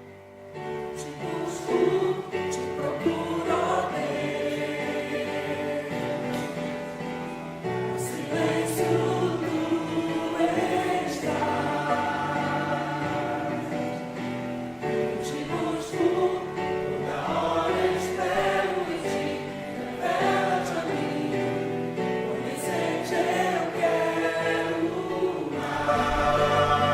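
Choir singing a hymn with instrumental accompaniment, the voices coming in about a second in.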